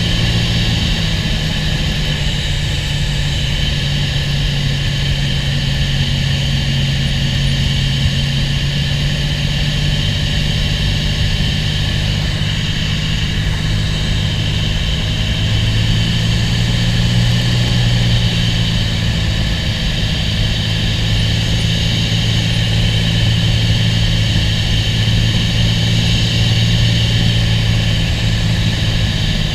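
A Cessna 206's single piston engine and propeller running steadily, a constant drone with no change in pitch.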